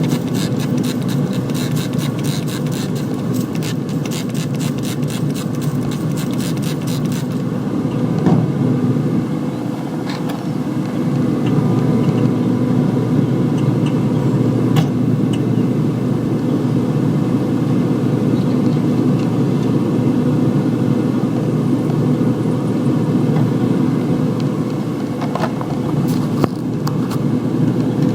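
A steady mechanical hum from a running motor, with a fast run of short spray-bottle spritzes over the first several seconds as the pork on the smoker is sprayed with apple juice. A few isolated clicks follow.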